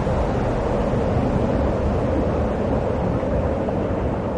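Niagara Falls' water thundering down into the gorge: a steady, deep rush of noise that does not change.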